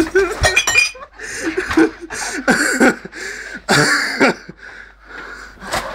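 Men's voices laughing and letting out breathy, wordless shouts in short bursts during a scuffle.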